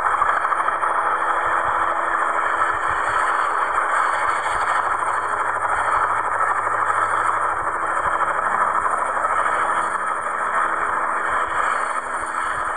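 Bell 505 light helicopter hovering just above the pad: steady turbine whine and main-rotor noise at full running power.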